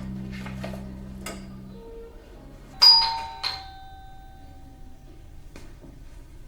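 Doorbell chime rung once about three seconds in: two ringing notes, ding then dong, about half a second apart, decaying over about a second.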